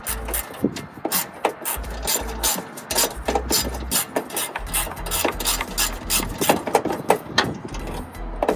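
Socket ratchet wrench clicking in quick, uneven runs as it turns a bolt under a truck's headlight.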